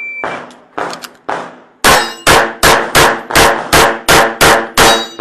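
Shot-timer start beep, then pistol shots: a few fainter shots, then a rapid string of about nine loud shots roughly 0.4 s apart.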